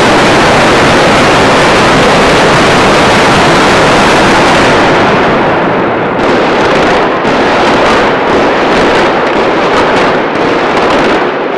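Building-implosion demolition charges going off: a sudden loud blast that runs on as a dense continuous roar, breaking up after about five seconds into rapid crackling pops over a low rumble.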